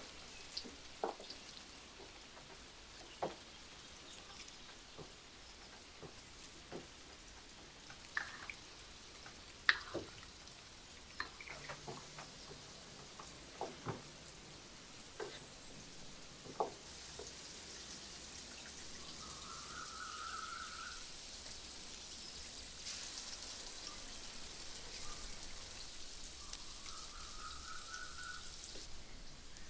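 Cooking sounds: scattered light clicks and taps, then from about halfway a steady high sizzle that stops abruptly near the end. Two short chirps sound over the sizzle.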